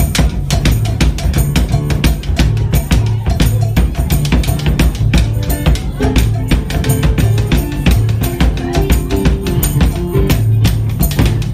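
Live Mardi Gras Indian band music: a drum kit and a big marching bass drum beating a dense, fast rhythm over a keyboard bass line.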